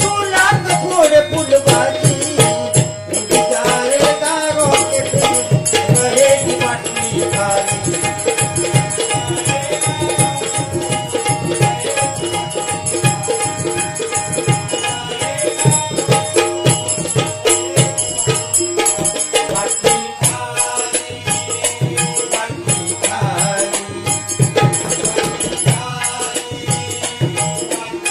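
Live bhajan accompaniment: a harmonium holds sustained notes over a steady hand-drum rhythm, with high ringing percussion throughout. A voice sings gliding notes over the first few seconds.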